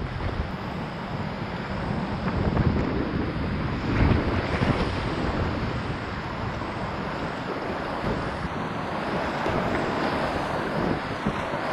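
Whitewater rapids rushing steadily around a kayak, with gusty wind buffeting the microphone.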